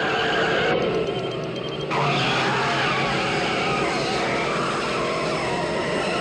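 Car accelerating hard, engine revving with tyres squealing, as a film sound effect. The sound changes abruptly twice in the first two seconds.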